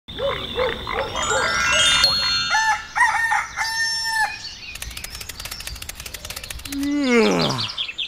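Rooster crowing among cartoon-style sound effects: a rising run of chime-like tones at the start, then short calls and a held crow, then rapid even ticking, and a falling whistle-like glide near the end.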